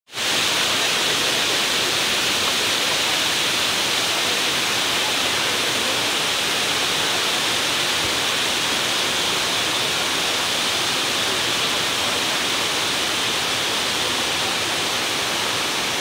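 Water pouring over a low weir in a wide cascade, a loud, steady rushing.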